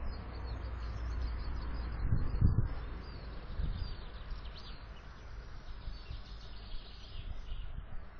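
Outdoor garden ambience: a steady hiss with a low rumble, a few dull low thumps about two seconds in, and faint bird chirps.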